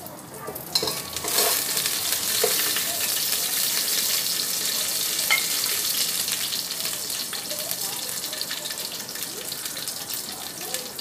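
Fenugreek seeds sizzling and crackling in hot oil in an electric rice cooker's inner pot, as the spices are tempered. The sizzle swells about a second in, then holds steady and eases slightly toward the end.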